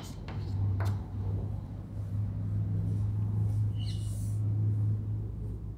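A low steady motor hum that stops near the end, with a single sharp tap of chalk on the blackboard about a second in.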